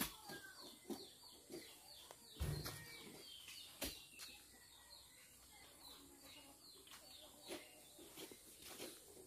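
Oil palm fruit bunches being loaded into a steel dump-truck bed: a few scattered sharp knocks and one dull thud. Small birds chirp rapidly in the background through the first half.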